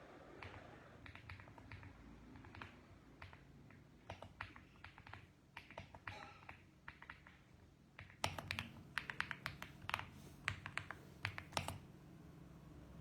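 Typing on a mechanical keyboard: scattered, unhurried keystrokes, then a quicker, louder run of keystrokes from about eight seconds in, stopping about a second before the end.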